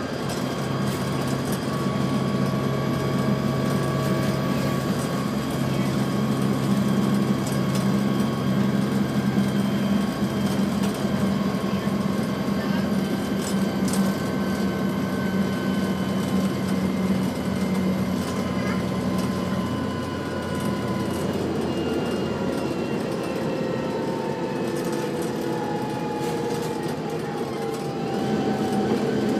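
Volvo B7TL double-decker bus on the move, heard from the lower saloon: the six-cylinder diesel runs steadily with a transmission whine over it. Past the middle the whine falls in pitch and the sound eases as the bus slows, then the engine picks up again near the end.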